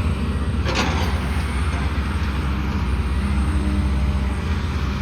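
Heavy construction machinery running steadily with a deep engine drone, and a short rushing burst about a second in.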